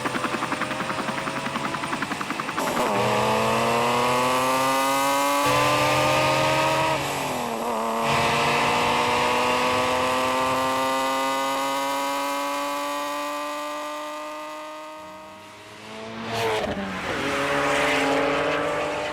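Dubbed-in race car engine sound effect accelerating through the gears: the pitch rises and drops back at each shift, about three, five and a half and eight seconds in. It then climbs slowly and fades away, with a second short burst of revving near the end.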